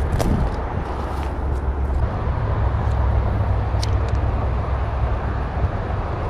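Steady traffic noise from highway vehicles passing close by, with a low rumble underneath and a couple of faint clicks.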